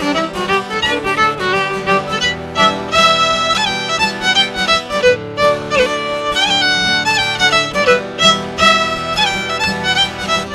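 Fiddle playing an Irish traditional dance tune: a steady stream of quick bowed notes.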